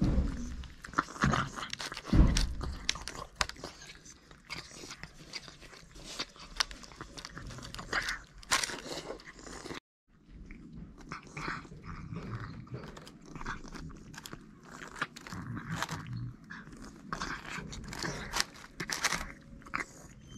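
Cats eating wet cat food at close range: a dense run of chewing, smacking and lapping clicks, with two dull thumps in the first few seconds. The sound drops out for an instant just before halfway.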